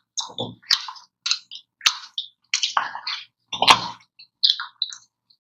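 Close-miked mouth sounds of eating ice cream: a quick series of short wet smacks, slurps and crisp clicks, about two a second.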